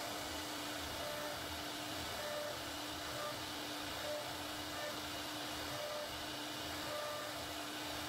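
CNC router spindle running steadily while its bit carves grooves into a solid wood panel. A steady noisy whine with a low hum that breaks off briefly every second or so as the cut goes on.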